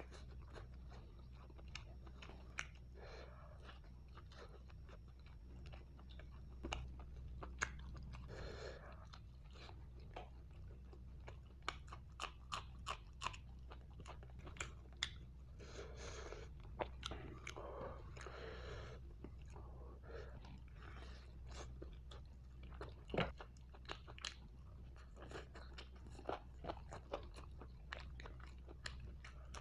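Close-miked chewing and biting of roasted chicken, with many short sharp mouth clicks and crunches and a louder click about 23 seconds in, over a steady low hum.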